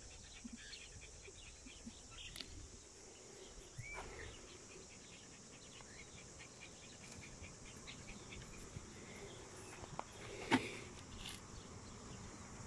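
Small clicks and rattles of shells and pebbles being handled and sifted by hand, over a steady high background hiss. One sharper click of stone on stone or shell comes near the end.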